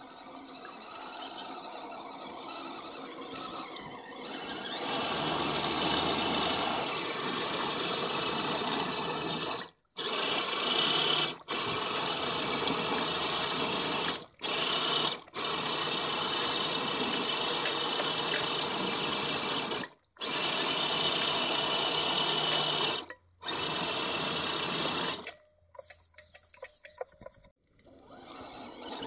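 Axial SCX10 RC rock crawler's tyres churning and splashing through a muddy creek while it tows a second RC truck, with a faint whine from its motor and gears. The sound cuts off abruptly several times and turns choppy near the end.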